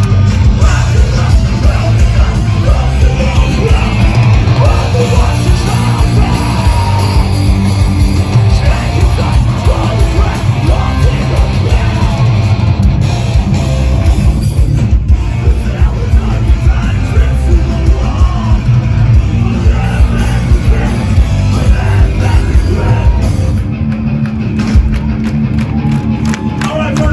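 A heavy band playing live: loud distorted guitars, bass and drums with yelled vocals.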